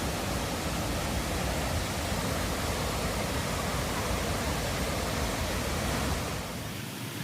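Steady rushing of a waterfall and creek water cascading over rocks, turning somewhat quieter and losing its low rumble near the end.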